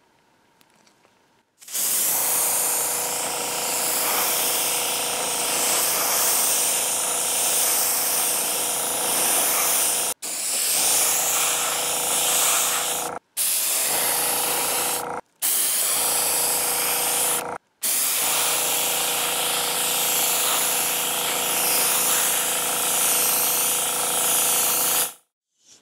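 Airbrush spraying: a steady hiss of air over the even hum of its running compressor. It cuts out abruptly for a moment four times and then resumes.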